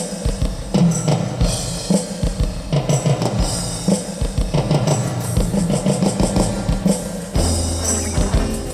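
A band song playing: drum kit with bass drum, snare and cymbals over a bass line, keeping a steady beat.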